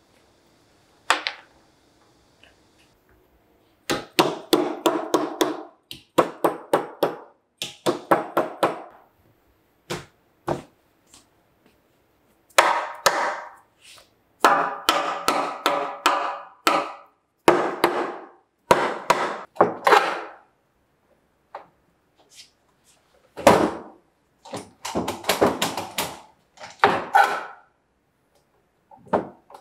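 Mallet blows on a wooden board, coming in quick bursts of several hits, about five a second, with short pauses between bursts, as a board is knocked into place for a glue-up.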